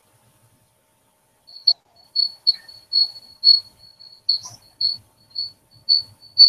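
After about a second and a half of silence, a high chirping starts and repeats evenly, about two short chirps a second, each on the same pitch, much like a cricket's call.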